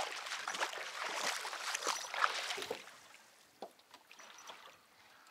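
Water splashing and sloshing around a small boat, busiest for the first three seconds, then quieter with a few light knocks.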